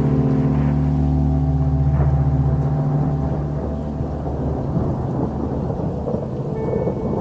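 A low, steady drone that fades about halfway through, giving way to a rolling rumble of thunder.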